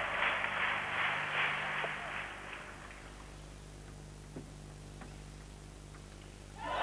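Arena crowd applause dying away over the first few seconds. Then a quiet spell with a few faint, sharp clicks of a table tennis ball in play, and the crowd suddenly breaks into loud applause and cheering right at the end.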